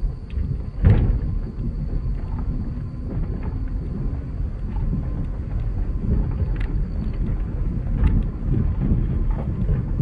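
Wind buffeting the microphone of a vehicle moving along a road, a steady low rumble, with one loud thump about a second in and a couple of lighter knocks later.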